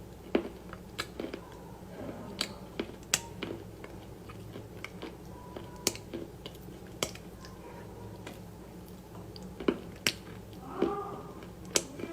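Close-up mouth sounds of a person eating: wet chewing with irregular sharp clicks and smacks, over a steady low hum.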